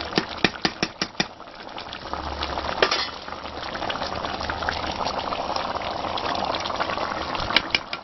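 Soup bubbling at a boil in a metal pot. A metal spoon clicks against the pot about six times in the first second, once near three seconds and again near the end.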